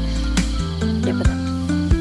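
Background music: sustained instrumental chords with a light percussive beat.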